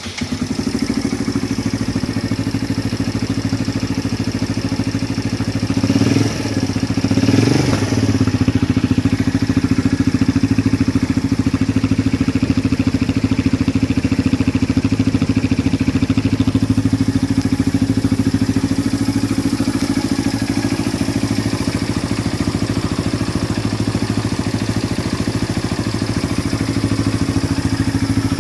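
Benelli VLX motorcycle engine with a modified exhaust idling steadily, with two quick throttle blips about six and seven and a half seconds in.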